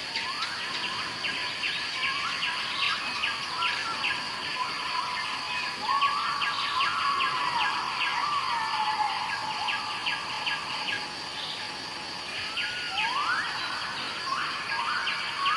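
Steady, high insect trilling with rapid ticking, overlaid by repeated rising bird whistles that come every second or two.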